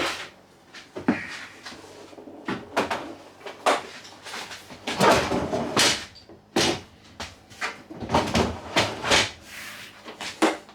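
Fridge slide-out tray being handled: a string of clunks and knocks with short scraping slides, like a heavy drawer being pushed and pulled.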